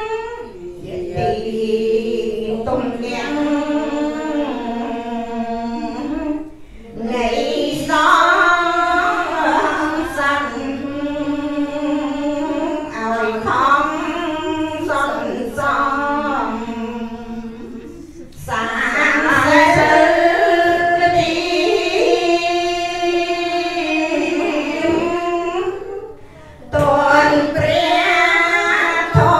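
A group of women chanting together in unison in a Buddhist devotional chant. The chant runs in long, drawn-out melodic phrases broken by brief pauses for breath.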